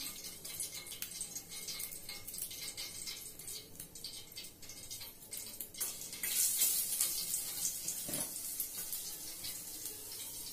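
Finely chopped ginger sizzling in a little hot oil in a steel kadai: a steady high hiss with scattered crackles that swells about six seconds in. A slotted steel spoon knocks against the pan now and then.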